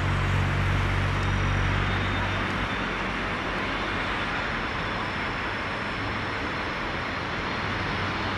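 Airbus A320-family jet airliner on final approach to land, its engines a steady rush with a faint high whine appearing about halfway through. A low hum, which could be road traffic, is strongest in the first couple of seconds and then fades.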